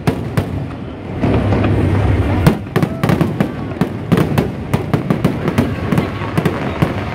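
Aerial fireworks going off in a rapid barrage of cracks and pops, with a long low boom from about a second in, ending in a sharp loud bang at about two and a half seconds.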